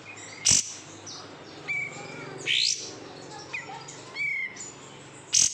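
Kapas tembak bulbul singing: two sharp, loud call notes, one about half a second in and one near the end, with a quick rising call in the middle and softer whistled notes between.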